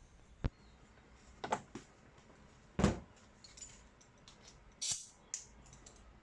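A handful of short, sharp clicks and knocks at irregular intervals, the loudest about three seconds in: tools and metal parts being handled while working on a car body panel.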